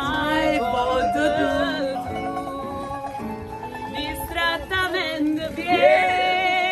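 Live folk song: a mandolin and an acoustic guitar strumming as a woman sings, with other voices singing along.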